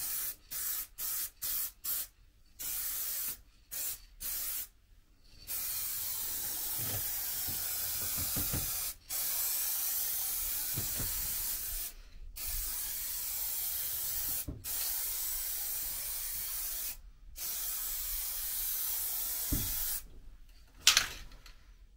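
HVLP paint spray gun hissing as it sprays: a run of short trigger pulls, then longer passes of a few seconds each, every one cutting off sharply. A single sharp click is the loudest sound, near the end.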